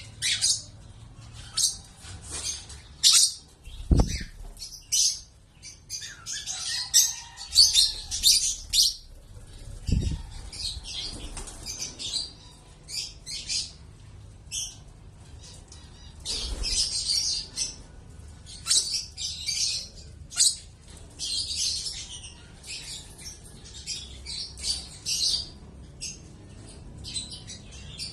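Lovebirds chirping and fluttering their wings in many short, shrill bursts, with two dull thumps about four and ten seconds in.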